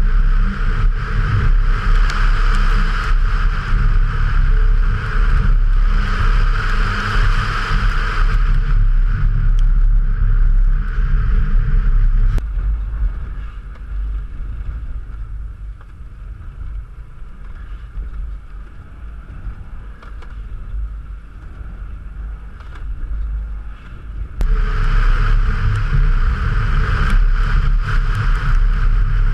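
Subaru Impreza turbo's flat-four engine running hard at racing speed on a wet track, heard with wind and water-spray noise from a camera outside the car. About twelve seconds in the sound drops suddenly to the quieter, muffled engine sound inside the cabin, then jumps back to the loud outside sound some five seconds before the end.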